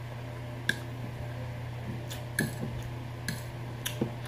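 A metal fork clicking and scraping against a plate of noodles, about six sharp clinks, with wet chewing sounds, over the steady hum of an electric fan.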